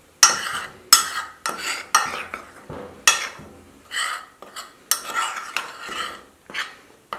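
Dry seasoned flour being stirred and scraped around a ceramic baking dish, in a string of short scraping strokes about two a second.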